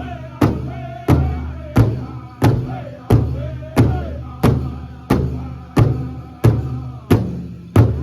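Powwow drum group performing a chicken dance song: a large powwow drum struck in a steady, even beat of about one and a half strikes a second, with the singers' high voices wavering above it.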